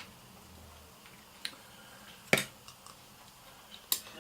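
A few sharp little metallic clicks of small fishing-tackle hardware (a swivel and clip on a flasher) being handled, the loudest a little past halfway.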